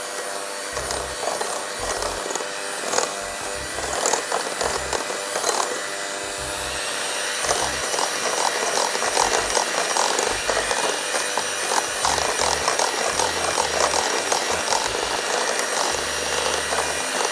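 Electric hand mixer running, its beaters whirring through batter in a glass bowl with a steady motor whine and a constant fast rattle that gets busier after about seven seconds.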